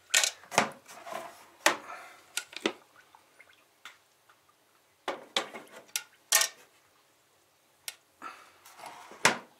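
A string of separate knocks and clatters from an LG bread maker as its lid is opened and its metal bread pan is lifted and pressed down into the machine.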